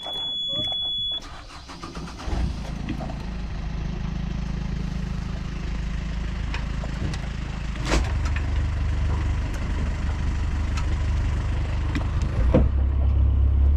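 Sailboat's inboard diesel engine being started from the cockpit panel: a high panel buzzer sounds for about a second, then the engine cranks, catches and runs steadily, growing louder about eight seconds in and again near the end.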